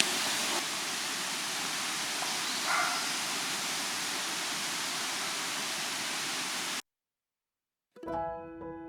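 A steady, even rushing noise that cuts off abruptly about seven seconds in; after a second of silence, piano music begins near the end.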